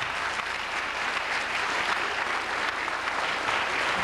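Theatre audience applauding steadily as performers leave the stage.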